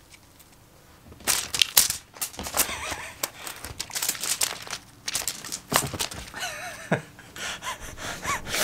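Crinkly kashakasha cat teaser wand being swished about, a quick run of crinkling and rustling that starts about a second in.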